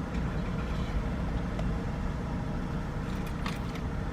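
Steady low rumble of a car, with a few faint clicks about three seconds in.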